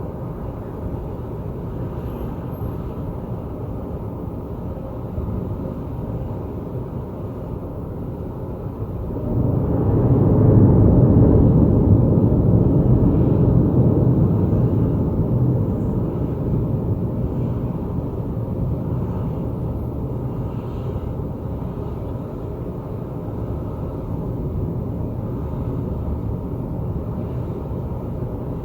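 Thunder rumbling: a long, low roll that swells suddenly about a third of the way in, stays loud for a few seconds, then fades slowly back into a steady low rumble.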